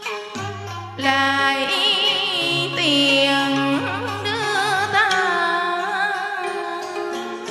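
Live Vietnamese song: a woman singing with wide vibrato over instrumental backing with held bass notes.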